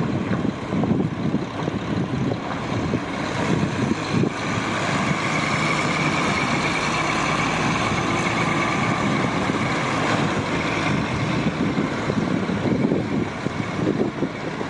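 Cummins ISM inline-six diesel of a concrete mixer truck running, with a whine at two pitches coming in for several seconds midway.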